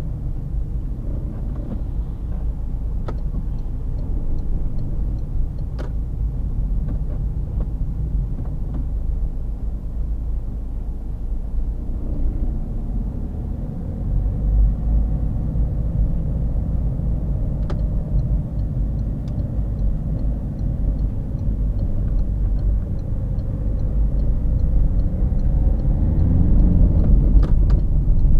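Car driving on the road, heard from inside the cabin: steady engine and tyre rumble, swelling a little near the end, with a few faint clicks.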